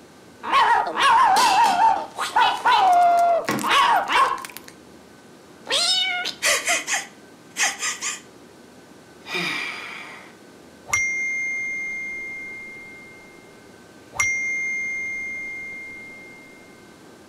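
A cat yowling with a wavering pitch for about four seconds, then a few shorter meows and a short hiss. After that come two bell-like message-notification chimes, each ringing out slowly over a couple of seconds.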